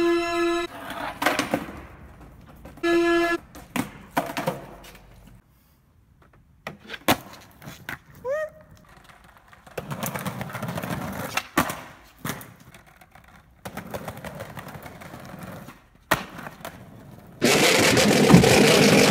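Skateboard wheels rolling on concrete, with the deck clacking in sharp knocks from tricks and landings. A held musical note sounds twice in the first few seconds. Near the end a car engine starts up and runs loud and steady.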